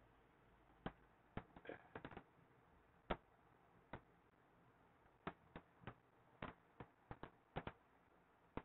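Near silence broken by faint, scattered clicks and taps: a stylus touching a tablet as words are handwritten.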